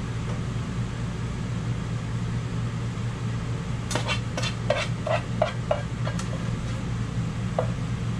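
Spoon scraping and clinking against a saucepan as apple filling is spooned out onto pie dough: a quick run of about eight clinks from about four seconds in, and one more near the end, over a steady low hum.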